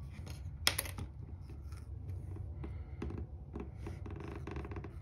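A small hand tool clicking and scraping against the edge of an opened iPad Air's frame. One sharp click comes about two-thirds of a second in, followed by a run of irregular light taps and scratches.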